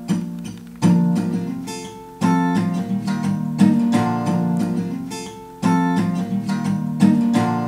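Background music: acoustic guitar strumming chords, one struck every second or two and left to ring and fade.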